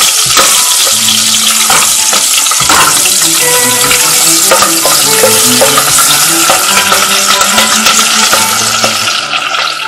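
Halved garlic cloves and basil leaves sizzling as they fry in hot olive oil in a stainless steel pot, stirred with a wooden spoon. The sizzle thins near the end.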